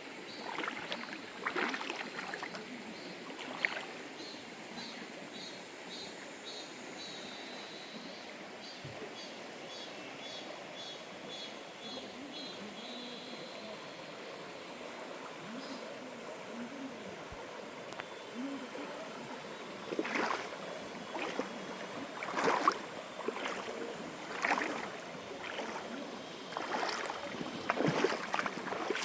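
Mountain stream flowing over rocks. About six seconds in, a high rapid trill runs for several seconds. In the second half, sharp splashes come and go.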